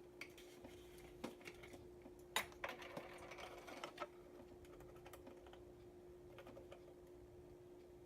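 Faint scattered clicks and taps of a measuring spoon on a spice container as a teaspoon of cinnamon is measured out. Most of the taps come in the first half, over a faint steady hum.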